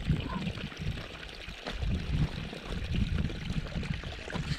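Wind buffeting the microphone: an uneven low rumble that swells and drops in gusts, over a steady hiss.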